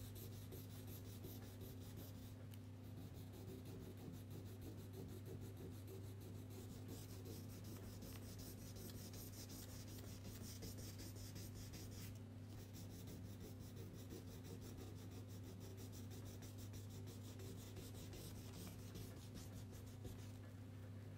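Green crayon scribbling quickly back and forth on paper, a fast run of scratchy rubbing strokes as leaves are coloured in, over a steady low hum.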